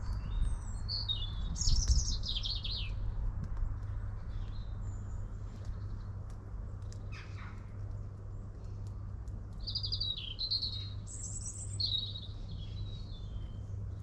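Small songbirds singing quick chirping, warbling phrases in two spells, one about a second in and another from about ten seconds, over a low steady rumble.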